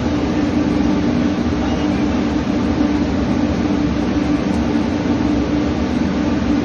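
Steady machinery drone of a gas tanker at anchor, a constant low hum with noise over it that keeps an even level.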